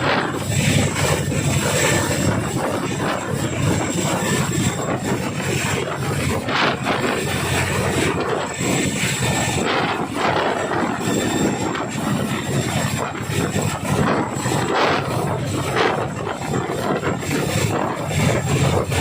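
Boeing CH-47 Chinook tandem-rotor helicopter running steadily close by: a dense, rapid beat of the rotor blades with a thin, high, steady whine over it.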